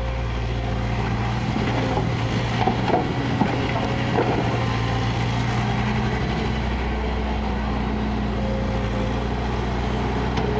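Kobelco excavator's diesel engine running steadily under work, with a few knocks and scrapes of the working gear about two to four seconds in.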